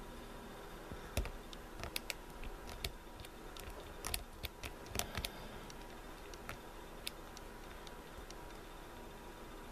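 Small, irregular clicks and taps of a lock pick working the pins of an old Corbin pin-tumbler lock under tension, over a faint steady hum. The clicks come in uneven clusters and thin out near the end.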